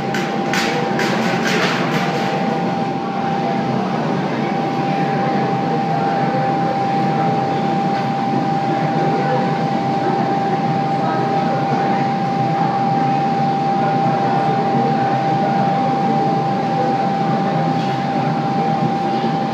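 Steady roar of a glassblowing studio's gas-fired furnace and its blowers, with a constant whine over it. A few light clinks in the first two seconds.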